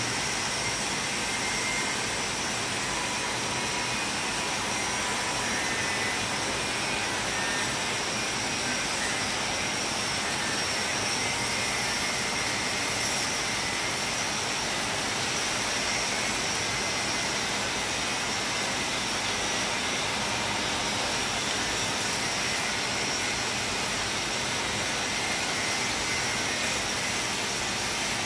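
Steady rain falling on banana plants: an even, unbroken hiss.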